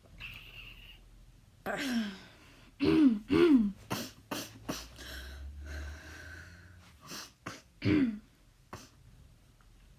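A person coughing repeatedly in harsh, voiced bursts, each cough's voice falling in pitch. There is a quick run of coughs about two seconds in and another short run near the end. This is the chronic habit cough (a somatic cough tic) that the material is about.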